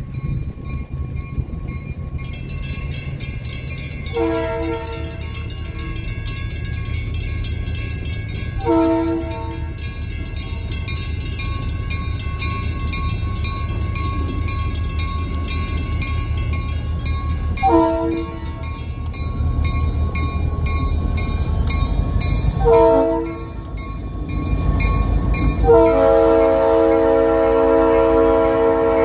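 A diesel freight locomotive sounds its air horn in a series of blasts for a grade crossing: four separate blasts, the fourth short, then a long held blast near the end, over the steady low rumble of its engine as it approaches.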